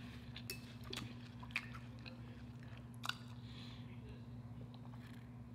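Faint close-miked eating sounds: soft chewing with a few small mouth clicks, then swallowing a drink from a glass, over a steady low hum.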